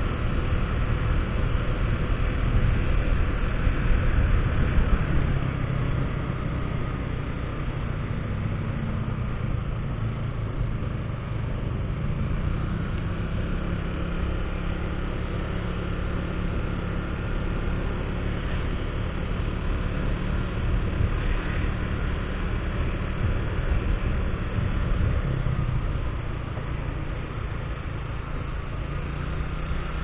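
Motorcycle engine running steadily while riding, its pitch shifting slowly with the throttle, under wind and road noise. It is a little louder in the first few seconds.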